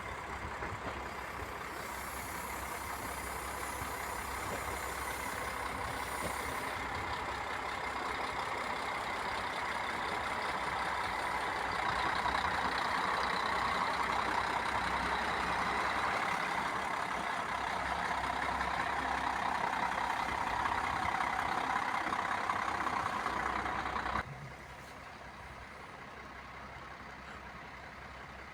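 Train running past on the line: a steady rail and running noise with a faint whine in it, growing louder toward the middle. It stops suddenly about 24 seconds in, leaving a quieter background.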